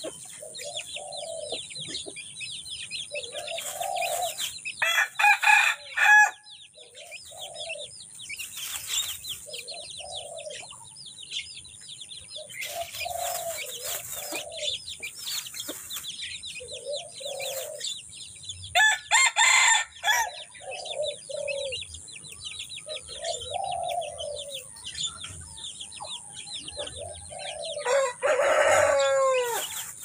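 Red junglefowl crowing: loud short crows about five seconds in and again near twenty seconds, and a crow that falls in pitch near the end. Low clucks come every second or two, over constant high chirping of small birds.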